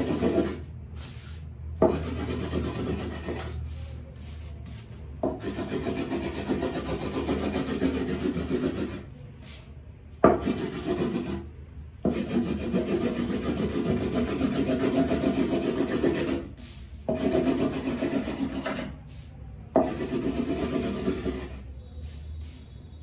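A small hand burnisher rubbed rapidly back and forth over brown kite paper laid on a wooden frame: quick scratchy strokes in bursts of one to six seconds with short pauses between. This is the burnishing (gutai) that presses a shiny star pattern into the paper.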